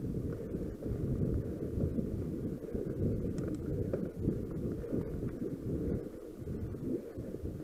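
Wind buffeting the camera microphone along with the rumble of a cross-country mountain bike riding fast over a bumpy dirt singletrack, with irregular low thumps as the bike hits bumps.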